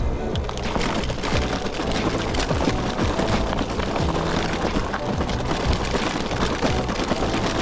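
Background music over a dense crackle and rattle of electric-bike tyres rolling over a loose gravel trail.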